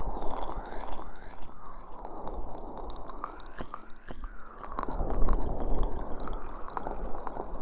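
Wet, sticky squelching and crackling of aloe vera gel rubbed over the ears of an ASMR microphone, processed with an echo effect that sweeps through the sound in repeating arcs.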